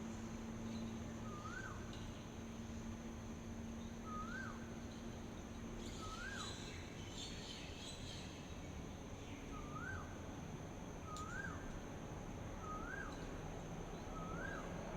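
A bird repeating a short call that rises and then drops, seven times at uneven gaps of one to three seconds, over a steady outdoor hiss. Near the middle a brief flurry of higher chirps joins in.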